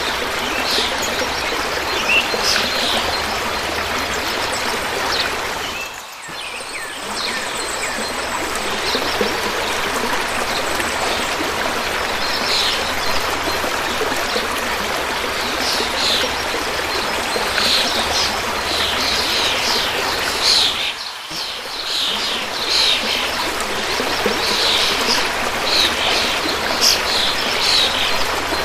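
A river running steadily, with small birds chirping over it again and again. The water sound dips briefly twice, about six seconds in and again near twenty-one seconds.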